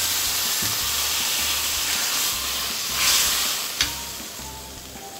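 Water hitting a hot wok of fried garlic, chillies and spring onion, hissing and sizzling into steam; the sizzle swells about three seconds in, then dies down as the pan cools. A sharp clink comes near the end.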